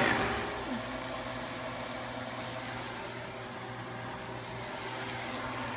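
Steady low machine hum with a faint hiss.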